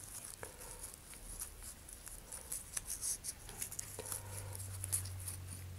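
Faint handling noise: soft rustling and a few small clicks as hands tie flat elastic shock cord onto a metal quick link. A low steady hum comes in about four seconds in.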